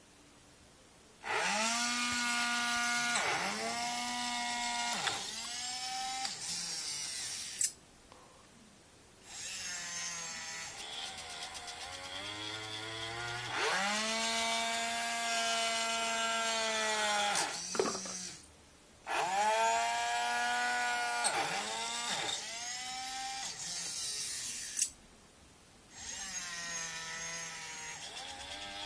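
Robot arm's joint motors whining in a series of pitched runs, each one rising as a motor starts and dropping as it stops, with short pauses between moves and a couple of sharp clicks.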